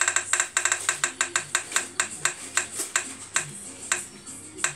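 Roulette-wheel app on a phone's speaker ticking as the spinning wheel passes each peg. The ticks slow steadily from about eight a second to about one every half second as the wheel winds down.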